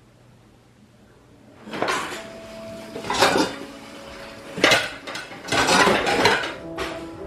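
Dishes and cutlery clattering and knocking together in several bursts, after a quiet first second or so.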